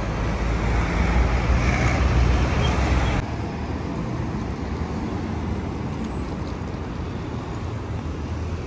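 Road traffic on a city street: vehicle engines rumbling with tyre noise. About three seconds in it drops suddenly to a quieter, steady background hum of traffic.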